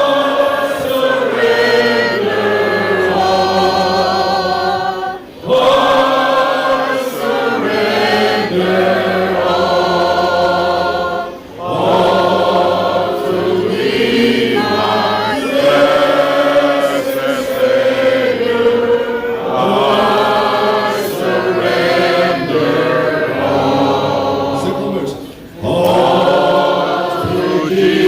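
Congregation singing a hymn together in long held phrases, with short breaks between phrases.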